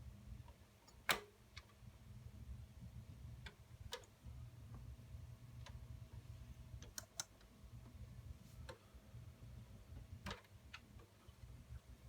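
Scattered light clicks and knocks from the plastic and metal parts of an HP Compaq 8000 Elite desktop being handled while its memory modules are swapped, over a steady low hum. The sharpest click comes about a second in.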